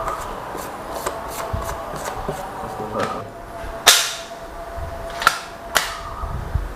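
PCP air rifle shots: a loud sharp crack about four seconds in, then two more sharp cracks about half a second apart a second or so later, with faint clicking beforehand.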